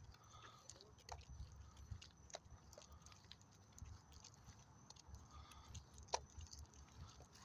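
Near silence: a faint low rumble with scattered light ticks and clicks, one a little louder about six seconds in.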